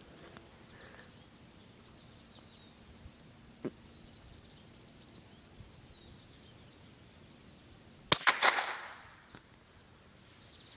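A single shot from a .22 bolt-action rifle about eight seconds in: one sharp crack with a short echo trailing off behind it.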